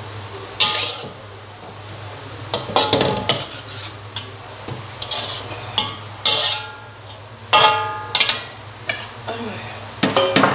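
A metal ladle scraping and knocking against a metal wok while food is scooped out, each knock ringing briefly, coming irregularly every second or two. A steady low hum runs underneath.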